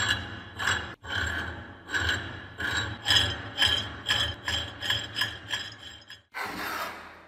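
Cast-iron worm of an antique hand meat grinder turned inside its cast-iron barrel, scraping and clinking metal on metal with a ringing tone, about two to three strokes a second. It stops, and a brief scrape follows near the end.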